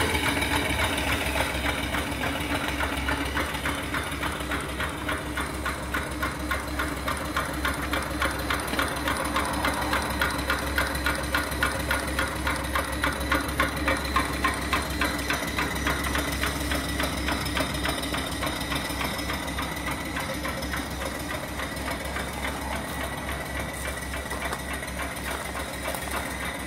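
Small single-cylinder horizontal steam engine with a flyball governor, 2.75-inch bore by 4-inch stroke, running steadily under steam: a fast, even mechanical beat of clicks and knocks over a low hum, growing a little fainter toward the end.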